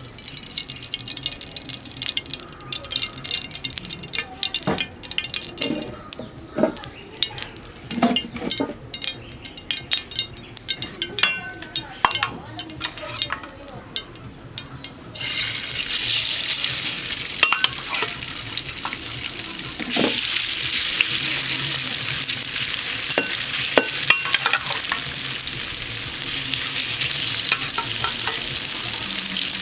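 Marinated chicken pieces frying in hot oil in a pan. At first there are scattered clicks and knocks of pan handling over a light hiss; about halfway through a loud, steady sizzle starts suddenly, and it grows louder again a few seconds later.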